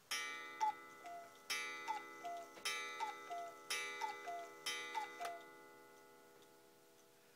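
Rombach und Haas 8-day cuckoo clock striking the hour: five cuckoo calls, each a falling two-note call, each with a strike on the gong about a second apart. The gong's ringing fades out over the last two seconds.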